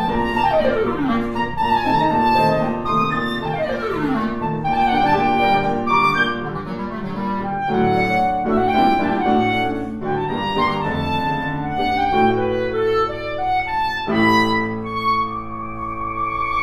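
Clarinet and grand piano playing classical music together. There are two fast falling runs in the first four seconds, and long held notes start about two and a half seconds before the end.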